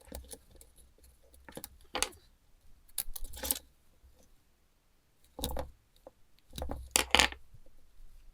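Small metal parts and hand tools clinking and rattling on a workbench, in a few separate clatters with quiet between.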